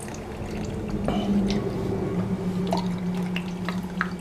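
Wine being poured into tasting glasses, with scattered light clinks of glass over a steady low hum.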